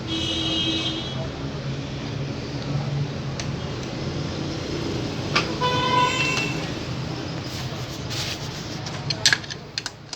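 Street traffic with vehicle horns honking twice, once at the start and again about halfway through, over a steady low hum. A few sharp clicks near the end.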